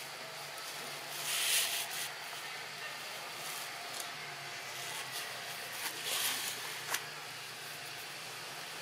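Steady outdoor background hiss, with a brief rustle about a second in, another around six seconds, and a single sharp click just before seven seconds.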